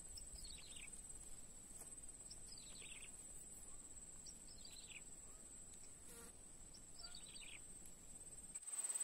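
A steady high-pitched insect drone, with a bird's short falling call repeated four times, about every two seconds.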